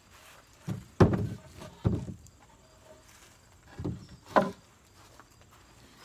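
Lengths of wooden lumber knocking and thumping as they are handled and laid down on a plywood work surface. There are about five dull knocks, the loudest and sharpest about a second in.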